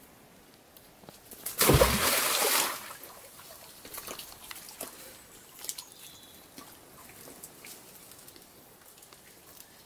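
A fishing magnet thrown on its rope into a shallow well hits the water with one heavy splash about a second and a half in, lasting about a second. Quieter sloshing and dripping follow.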